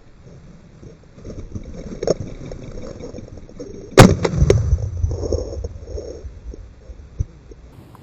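A single shotgun shot about halfway through, sharp and loud, with a low rumbling tail after it. Before it, rustling and footfalls through brush.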